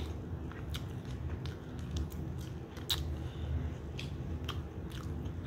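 Eating sounds: chewing, with scattered light clicks and taps of chopsticks and plastic food containers.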